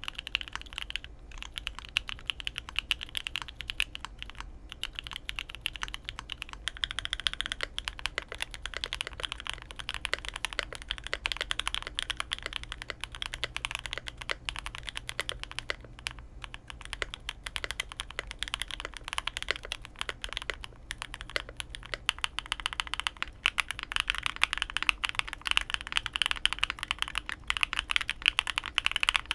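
Fast, steady typing on lubed custom mechanical keyboards, in three takes. First a Fuji75 with a polycarbonate top and plate and EQUALZ Banana Split switches; about six seconds in, a Mode SixtyFive with an FR4 plate and Banana Split switches; about 22 seconds in, a Fuji75 with an aluminium top and plate and Carol switches.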